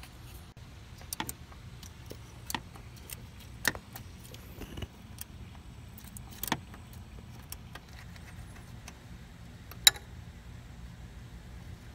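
Scattered sharp metallic clicks and clinks as hand tools and fasteners are handled while the alternator's ground wire is taken off in a car's engine bay, about half a dozen in all with the sharpest near the end. A low steady hum underneath.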